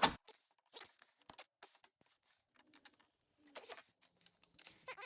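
A sharp click, then scattered faint clicks and short rustles of plastic parts being handled while hooking up radiator fan shroud fittings.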